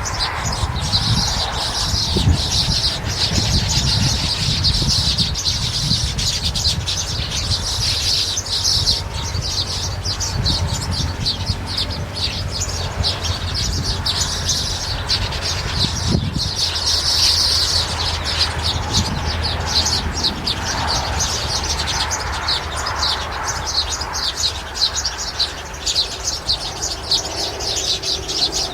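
Many birds chirping at once, a dense, continuous chatter of rapid high chirps, over a low rumble.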